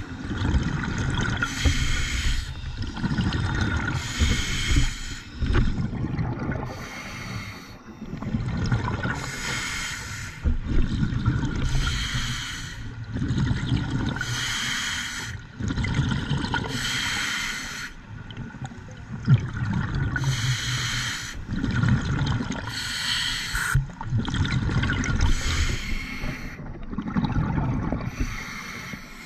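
A scuba diver breathing through a regulator underwater: a hiss of drawn air alternating with a gurgle of exhaled bubbles, repeating about every two and a half seconds.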